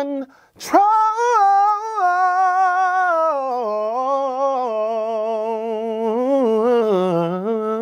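A man singing the word "control" unaccompanied, as a slow demonstration of a vocal riff: a high held note with vibrato that steps down into a wavering run of notes and climbs again near the end.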